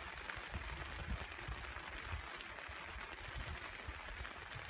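Rainstorm ambience: an even hiss of rain, with wind gusting on the microphone as an irregular low rumble.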